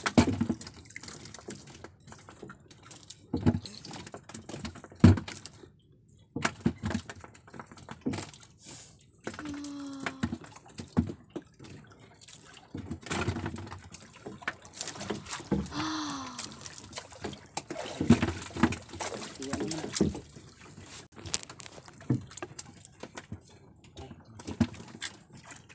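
Water splashing and lapping around a small wooden outrigger boat, with irregular knocks and clatter as handline fishing line and gear are handled inside the hull. A few short pitched sounds come up now and then.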